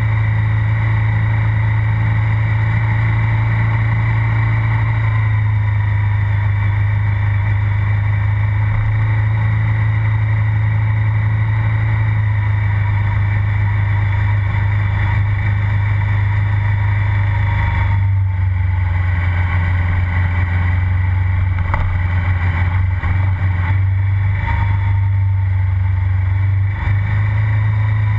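KTM 990 SMR's V-twin engine running, heard right beside its exhaust silencer, at a steady low pitch while the bike is ridden along. From about eighteen seconds in the sound thins out and wavers a little.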